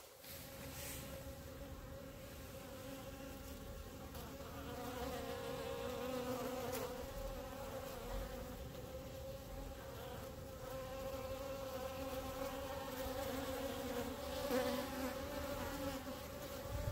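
Honeybees buzzing close up: a steady, wavering hum that swells louder at moments, from a clump of worker bees balled around a queen.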